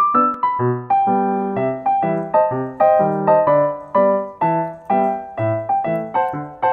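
Background music: a light, bouncy keyboard tune of struck notes, each dying away, with a melody over a simple bass line.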